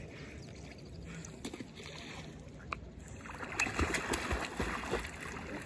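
Lake water sloshing quietly, then about three seconds in a boxer dog splashing through the water with its front paws for about two seconds.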